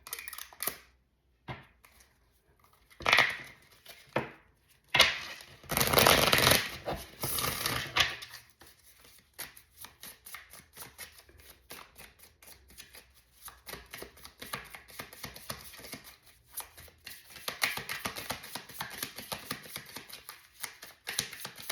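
A deck of tarot cards being shuffled by hand. A few loud rustling rushes come in the first several seconds, then a long run of quick, soft card clicks.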